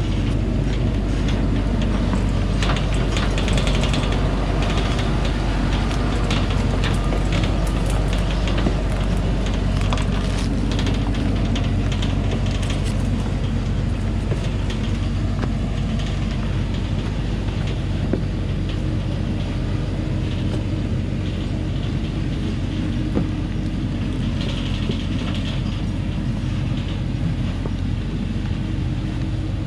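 Thaco Forland truck's diesel engine pulling under load up a steep stony track at low speed, a steady low drone. Over it come many clicks and rattles, busiest in the first half.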